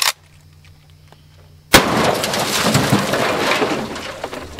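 A single shot from a Marlin Model 30TK lever-action .30-30 carbine about two seconds in. It is followed by about two seconds of noisy wash that slowly fades out.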